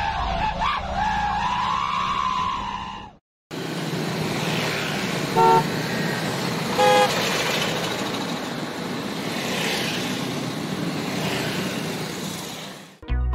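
Road traffic: a steady rush of passing vehicles with two short car-horn toots about a second and a half apart. Before it, for the first three seconds, a warbling high tone that cuts off suddenly.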